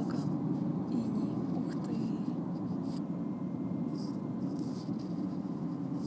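Steady low rumble of a car driving along a highway, heard from inside the cabin.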